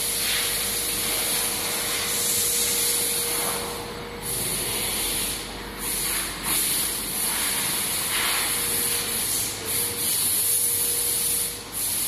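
Steady hiss of factory hall noise with one constant low hum running under it.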